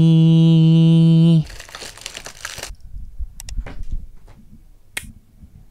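A man's voice holding one long sung note, cut off abruptly about a second and a half in. Then a short burst of crinkling and rustling as the LEGO calendar pieces are handled, and a few sharp light clicks of small plastic pieces.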